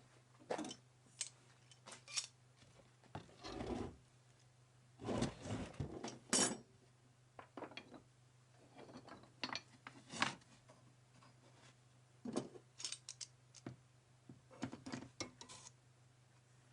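Irregular hand-work sounds on wood and tools: short clicks and knocks with a few longer scrapes, over a steady low hum.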